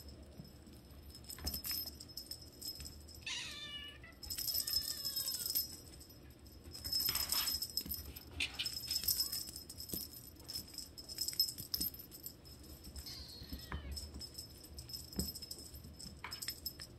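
Six-week-old Siamese kittens meowing, one clear meow a few seconds in and a fainter one near the end, mixed with bursts of light jingling and rattling from a kitten batting at a wand toy.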